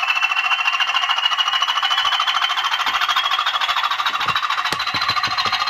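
Sound decoder in a model Class 20 diesel locomotive playing its engine sound through a small speaker: a steady diesel drone with a whine that rises slowly in pitch as the loco picks up speed. A run of quick light clicks comes in about four seconds in.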